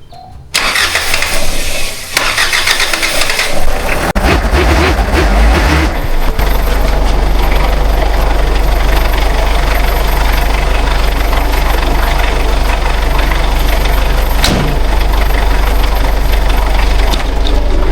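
Diesel engine cranking about half a second in and catching within a few seconds, then settling into a steady idle. The injector lines have just been bled of air and primed with the hand primer pump to cure a crank-but-no-start.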